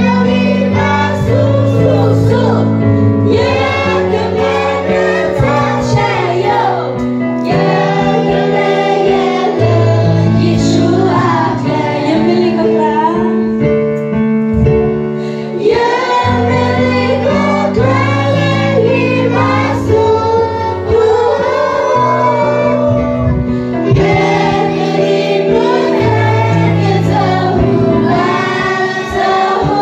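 Young singers, mostly girls, singing a Christian song together through microphones and a PA system, over an amplified accompaniment with a steady bass line.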